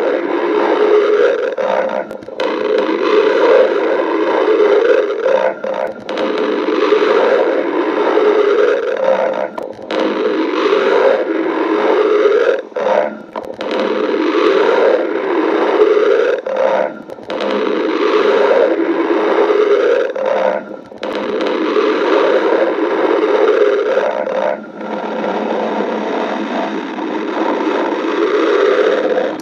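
A woman's stomach growling and gurgling: a loud, rough, near-continuous rumble that drops away briefly every few seconds.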